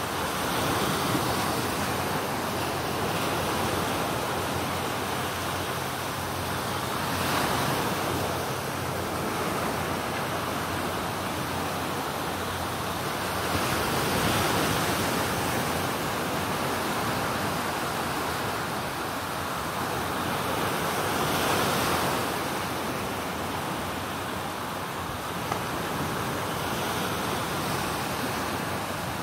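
Surf breaking on a sandy beach: a steady rush of water, swelling as each wave breaks and washes in, about every seven seconds.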